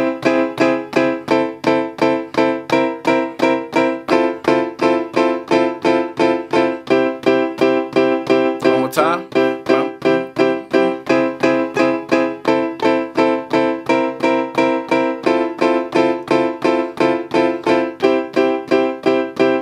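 Piano-type keys sound played from the pads of a Native Instruments Maschine Studio: chords struck in a steady rhythm of about three a second, stepping through a short chord progression in the key of C and cycling back to the first chord.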